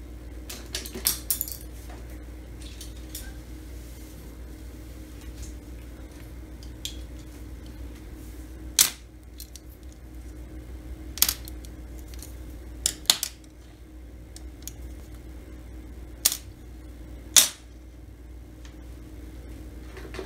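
Paintbrushes being set down one by one on a wooden tabletop: a series of sharp, irregular clacks, some in quick pairs, over a steady low room hum.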